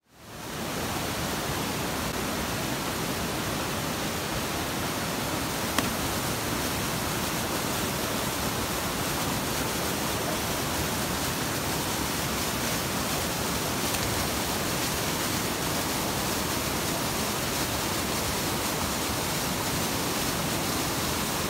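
Steady, even rushing of falling water. It fades in over the first second, with one sharp click about six seconds in.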